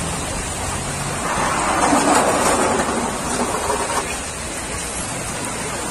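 Heavy storm rain pouring down, a steady noisy rush that swells louder for a couple of seconds starting about a second and a half in, then settles back.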